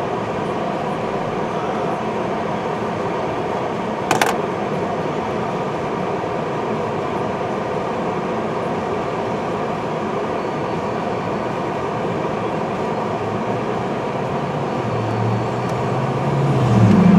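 CN freight train rolling past: a steady, even rail noise, with one sharp click about four seconds in and a low hum that comes up and rises in pitch near the end.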